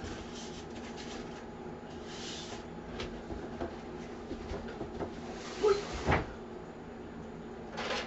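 Knocks and clatter of computer parts and boxes being handled and set down during rummaging, with a few sharper knocks a little past halfway and another near the end.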